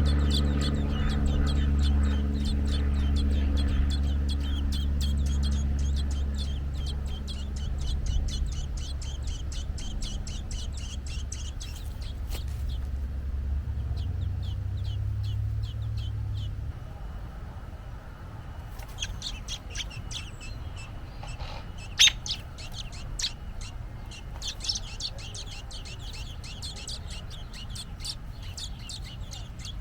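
Bird chirping in long runs of rapid, short, high calls, pausing for a few seconds midway and then resuming. A low steady hum runs under the first half, and a single sharp click stands out about two-thirds of the way through.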